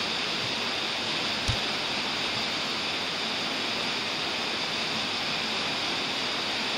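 Steady rushing noise of running water, even and unbroken, with one small click about a second and a half in.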